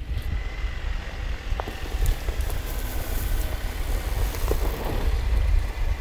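Jeep Wrangler driving slowly along a grass track, its engine and tyres mixed with a steady low rumble.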